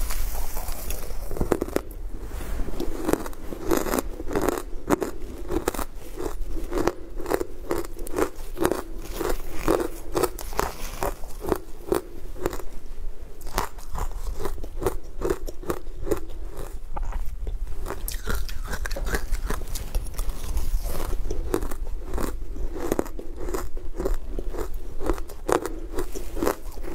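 Close-up crunching of frozen, green-coated sweet ice as it is bitten and chewed, a steady run of crisp crunches about two a second.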